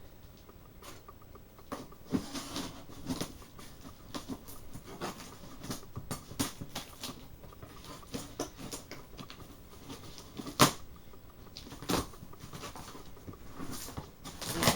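Packaging being handled and opened by hand: scratchy rustling and small clicks of cardboard and plastic, with two sharper snaps in the second half.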